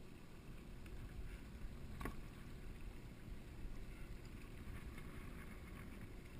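Steady low rumble of wind and choppy water against a small open boat's hull, with one sharp knock about two seconds in.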